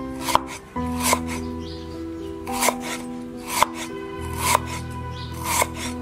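Steel cleaver slicing fresh ginger on a wooden chopping board, a sharp cut-and-knock on the board about once a second. Background music plays throughout.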